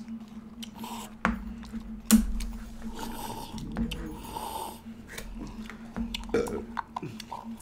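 Ice-cream eating noises: mouth sounds and scattered clicks of wooden spoons and paper ice-cream cups being handled, the sharpest click about two seconds in. A low steady hum runs underneath.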